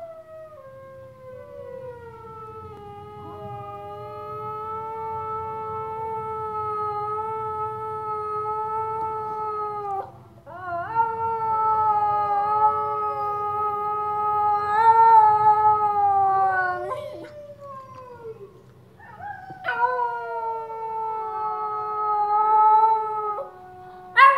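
A small terrier howling along with wolf howls from a television: long, drawn-out howls, each held near one pitch and falling away at the end, in three long stretches that break off about ten seconds in and again around seventeen seconds.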